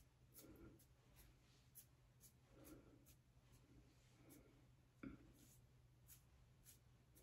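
Near silence with faint, scattered rustles of fingers working through wig hair, and one slightly sharper tap about five seconds in, over a low steady hum.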